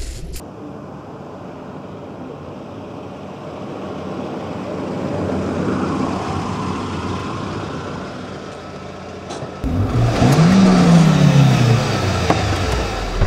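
Renault Twingo Gordini's 1.2-litre 100 hp engine: the car drives past slowly over cobblestones, its sound swelling and fading. About ten seconds in, the engine is revved hard, its pitch rising and then falling back.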